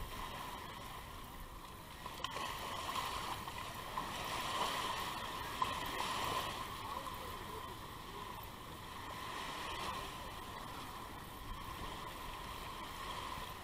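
Shallow surf washing in and out around the legs of waders at the shoreline, a steady rushing that swells and fades, with a sharp splash a little past halfway.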